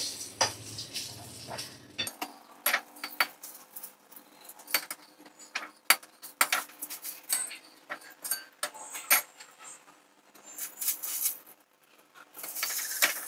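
Utensil clinking and scraping against a kadai (wok) as fried eggplant slices are lifted out one by one: irregular sharp clinks and taps throughout.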